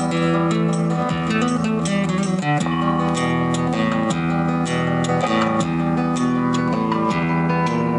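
Guitar music played loud through a speaker cabinet with woofers and horn tweeters, driven by the repaired LL Professional 2600 power amplifier as a playback test of one of its channels.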